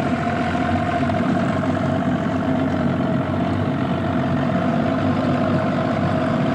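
Boat's outboard motor running at a steady speed, a constant engine drone heard from aboard.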